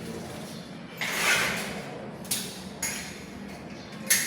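Deadbolt parts and screws being handled and set down: a short rustle about a second in, then three sharp clicks, the last one the loudest.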